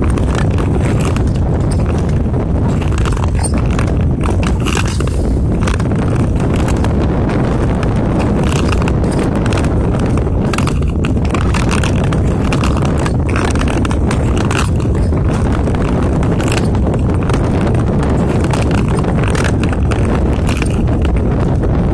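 Skating on black lake ice: a steady rush of wind on the microphone as the camera moves across the ice, with the short scrape of skate blades at each stroke about once a second.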